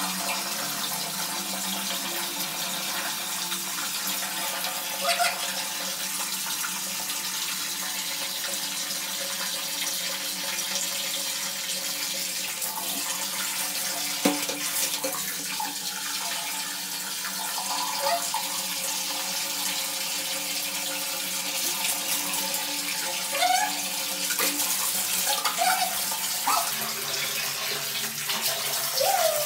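Tap water running steadily into a plastic bucket, with a few brief knocks and splashes.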